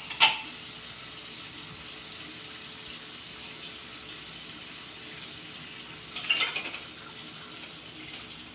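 Kitchen faucet running steadily as dishes are rinsed under it, with a sharp dish clink just after the start and a short clatter of dishes about six and a half seconds in.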